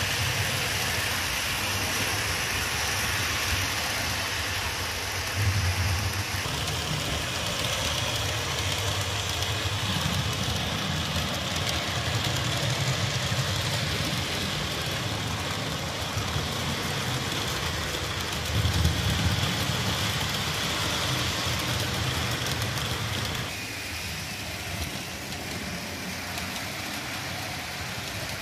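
HO-scale model trains running on a DC analog layout: the locomotive motors whir and the wheels roll along the track with a steady hiss. A low rumble swells twice, and the sound drops to a quieter level near the end.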